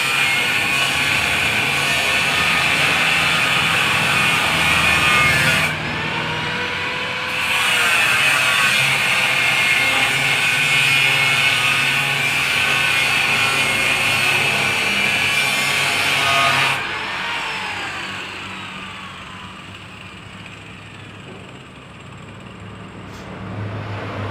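Angle grinder working on metal with a harsh, steady grinding noise, easing off briefly about six seconds in. Near the end of the first two-thirds it is switched off and its disc winds down with a falling whine.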